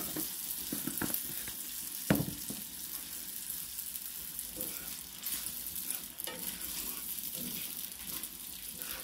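Spaghetti frying and sizzling in coconut oil in a pan, stirred, with a few light knocks of the utensil against the pan. A sharp knock about two seconds in is the loudest sound.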